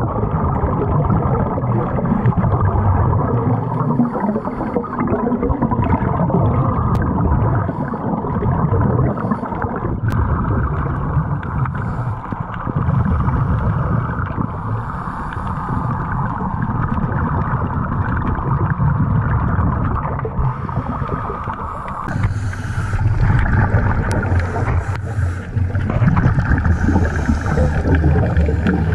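Underwater sound of scuba breathing through a regulator: bursts of exhaled bubbles gurgling past the microphone every few seconds over a steady underwater rush of noise.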